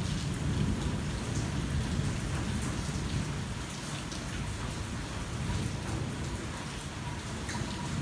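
Rain falling on a car's roof and windshield, heard from inside the car: a steady hiss with scattered sharp drop ticks. Over a continuous low rumble that is a little stronger in the first few seconds.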